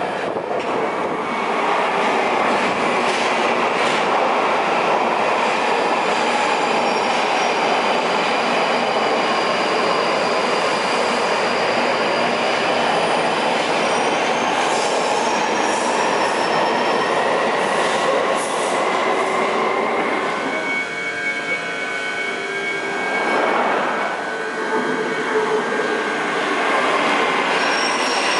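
Passenger train running on the rails, a steady noise of wheels on track with faint high-pitched wheel squeal. About 21 s in, a whine with several pitches at once comes in for a few seconds.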